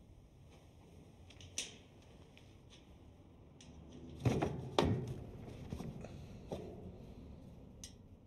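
Metal air-vent cover being unscrewed with a coin and pulled off the wall. A faint click comes first, then about four seconds in two louder metallic scrapes, followed by a few softer knocks as the cover is handled.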